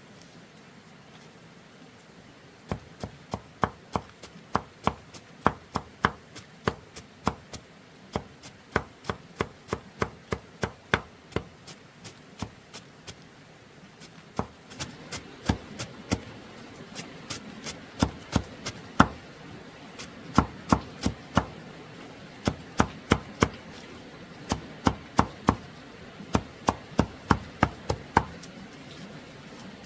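A long run of sharp, even blows, about two a second, like a blade chopping on a hard surface, with a short pause about halfway through.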